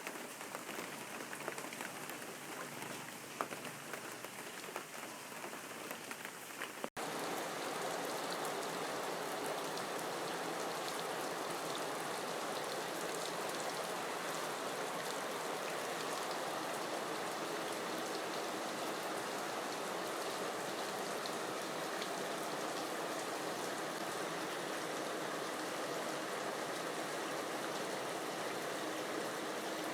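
Steady rain falling, with the fine patter of drops on surfaces. About seven seconds in there is a brief dropout, after which the rain is a little louder and more even.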